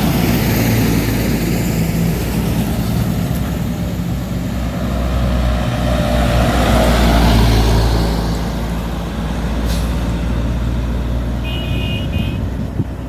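A heavy truck's diesel engine labouring up a steep grade. The engine drone swells louder around the middle, and a brief high-pitched tone sounds near the end.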